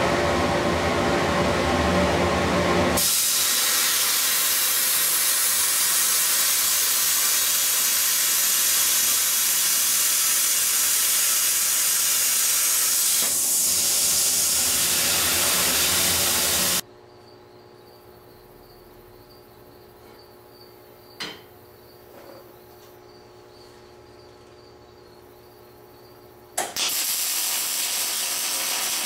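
CNC plasma cutter cutting steel flat bar: a loud, steady hiss, rougher for the first three seconds, that cuts off suddenly after about 17 seconds. A quiet stretch with a single click follows, then a MIG welder starts crackling near the end as a weld is laid.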